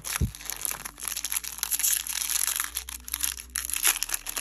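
Wrapper of a Match Attax trading-card booster pack crinkling and tearing as it is ripped open by hand, a dense run of crackles throughout.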